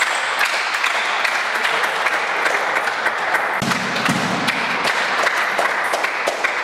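Spectators clapping steadily after a rally in a table tennis match, a sign that the point has been won.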